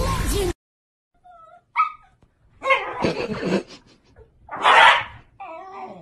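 Two Shiba Inus play-fighting: a string of short yips and whines, broken by harsh growly barks, the loudest about five seconds in, and a wavering whine near the end.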